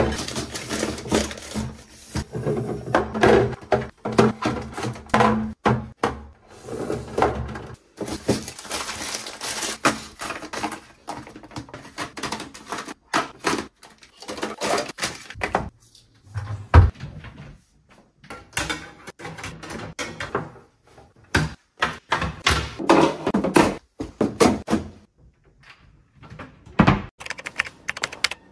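Hard plastic storage bins and toiletry bottles being moved and set down inside a cabinet: irregular clunks and knocks of plastic on plastic, with short scrapes and rustles between them.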